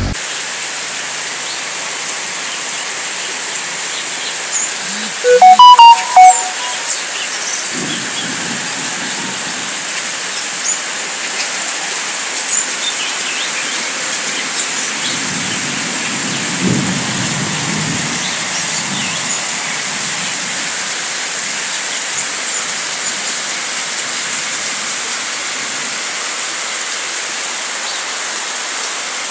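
Heavy rain pouring steadily, a dense even hiss. About six seconds in, a brief, very loud pitched sound cuts through, and faint low rumbles come and go later.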